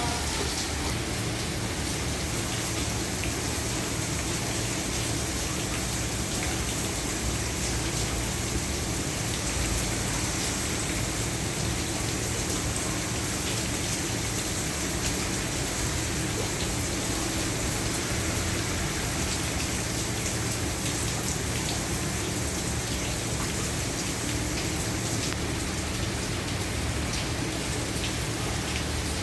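Heavy rain pouring steadily onto a roof, a dense even hiss with many small drop ticks.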